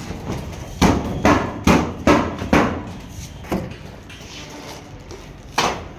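Hammer blows on roofing work: five quick strikes about two a second, another about a second later, and a single strike near the end.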